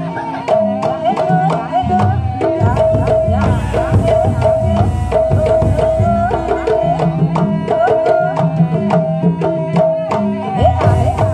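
Jaranan buto ensemble music: kendang hand drums playing a fast, busy rhythm under a melody that holds one note and bends around it, with low drum or gong tones underneath.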